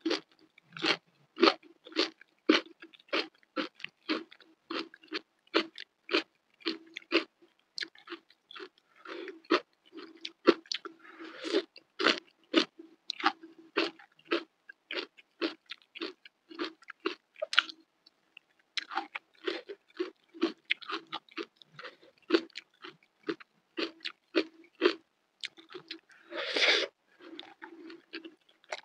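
Close-miked chewing of a handful of bean sprouts, rice and fried tofu with chili sambal: crisp, wet crunching chews at about two to three a second, with a longer, louder crunch about 26 seconds in.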